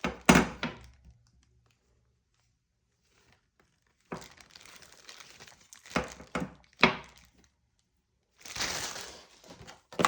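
Plastic bag crinkling and rustling as a door handle set is taken out of it, with a few sharp knocks. The knocks come right at the start, then a pause of a few seconds, then the rustling comes in bursts.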